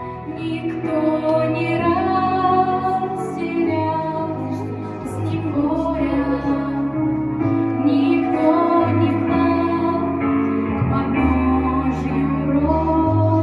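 Music: a slow Christian song, a female voice singing a melody over sustained low accompaniment.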